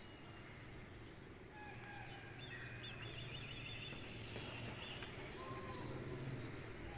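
Faint chirping of small birds, a quick run of high chirps in the middle, over a steady low hum, with one sharp click about five seconds in.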